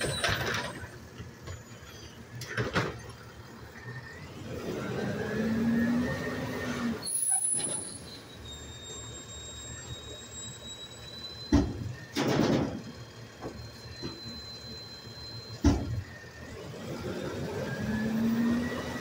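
Automated side-loader garbage truck's engine running, revving up twice. Two sharp metallic bangs and a short hiss come in the second half.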